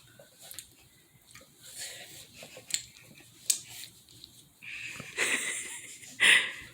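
A child breathing hard through the mouth, with hissing, wheezy breaths and small mouth clicks, while a very sour candy is in the mouth. The loudest breaths come about five seconds in and again just after six seconds.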